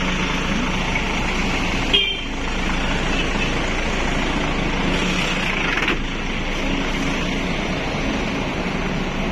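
Tour coach engine idling as a steady low hum, with a brief high toot about two seconds in.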